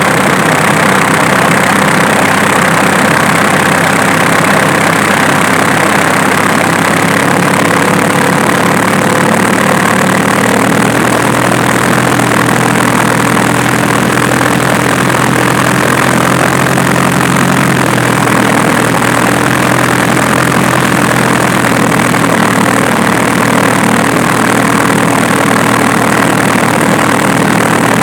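Diesel engine idling steadily, its idle pitch stepping slightly a few times. This is the engine whose snapping noise was traced to the alternator, not the injection pump.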